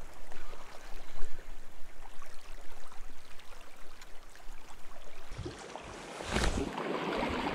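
Small waves lapping and splashing irregularly against the rocks at the water's edge, with a louder rustling, rubbing noise about five and a half seconds in as a hand brushes past the camera.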